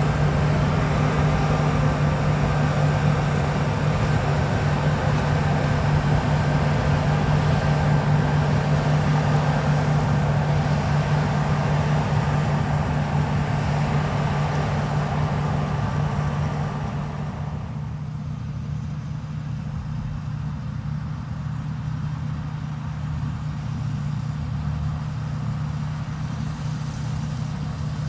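A heavy farm machine's engine running at a steady pitch, with the higher, noisier part of its sound dropping away about two-thirds of the way through while the low hum carries on.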